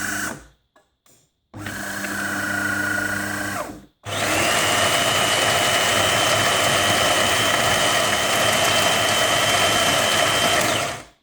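De'Longhi Magnifica ESAM 3000 bean-to-cup coffee machine starting a coffee cycle: a motor hums in two short runs, then the built-in grinder grinds beans for about seven seconds with a steady high whine and stops suddenly.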